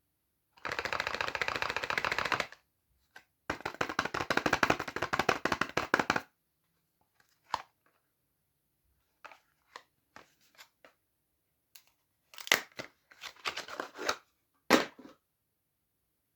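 Soap wrapping being unwrapped: two long stretches of fast crinkling, then scattered short rustles and taps, the sharpest about twelve and a half and fifteen seconds in.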